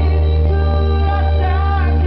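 Live pop ballad: a male singer's amplified voice singing over the band's backing music, with a sustained bass note underneath.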